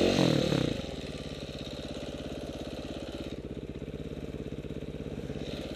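Dirt bike engine idling steadily, after a rev that drops away in the first second.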